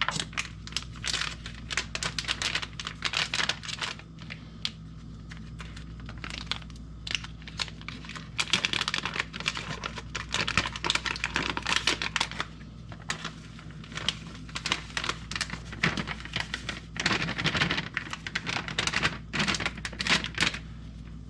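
Crinkling and tearing of a packaged cookie-mix pouch being opened and handled, in irregular crackly clusters.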